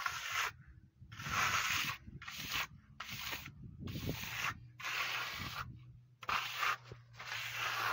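Steel plastering trowel scraping across a rough textured wall coating in about eight short, rasping strokes with brief pauses between them.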